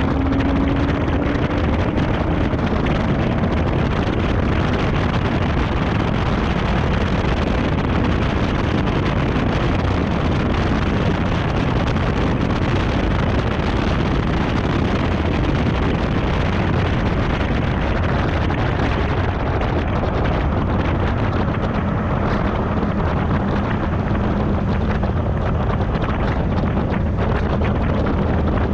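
Heavy, steady wind rush buffeting a camera microphone mounted on the outside of a Chevrolet Camaro 1LE next to its front wheel, at about 70 to 85 mph. Fainter tyre and engine noise runs underneath.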